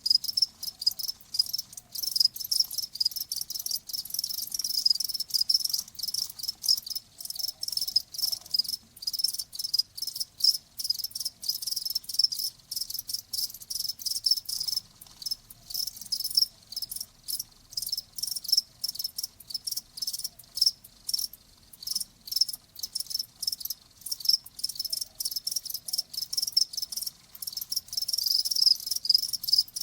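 Crickets chirping steadily in rapid, repeated pulses, several overlapping.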